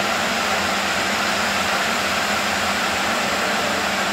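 A machine running steadily: a constant hum with an even hiss, no change in speed or pitch.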